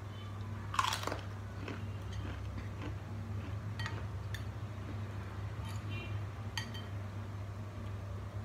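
A crunchy bite about a second in, followed by chewing and several light clinks of a metal spoon against a ceramic bowl as food is scooped. A steady low hum runs underneath.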